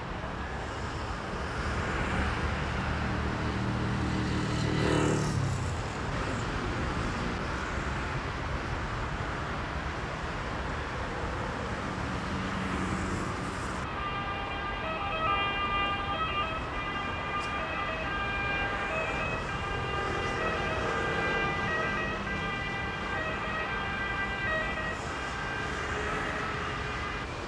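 Road traffic, with a heavy vehicle's engine passing in the first few seconds. About halfway through, a siren starts and keeps sounding over the traffic.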